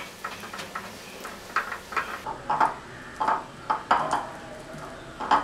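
A hand mixing paneer strips into a thick wet masala paste in a ceramic bowl: irregular soft squishes and light taps of fingers and paneer against the bowl.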